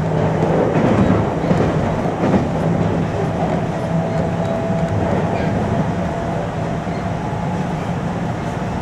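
521 series electric train running at speed, heard from inside its motor car: a steady running rumble with a low hum from the running gear. A couple of wheel clacks over rail joints come in the first few seconds.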